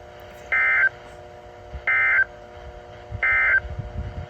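Emergency Alert System end-of-message code on NOAA Weather Radio: three short, identical bursts of SAME data tones, each about a third of a second long and about 1.4 seconds apart, signalling the end of the alert. A faint steady hum runs underneath.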